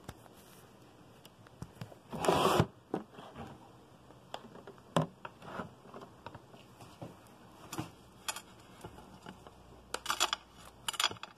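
Handling noise from the recording camera being moved: a brief loud rustling scrape about two seconds in, then scattered light clicks and taps, with a quick run of clicks near the end.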